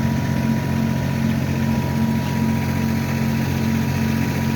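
A large engine idling steadily nearby: an even, unbroken hum with a thin, steady high tone over it.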